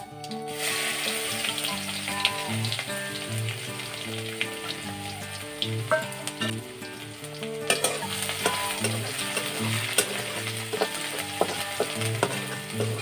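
Food sizzling as it is tipped into a hot metal kadai over a wood fire and stirred, with the metal spatula scraping and clicking against the pan. Background music with steady low notes plays underneath.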